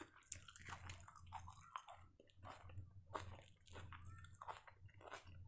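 A person chewing and smacking her lips, a run of short wet mouth clicks about three times a second.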